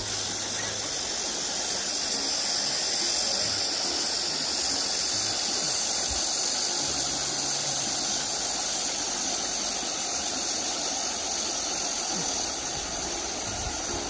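Shallow stream running over a stony bed: a steady rush of water, even throughout.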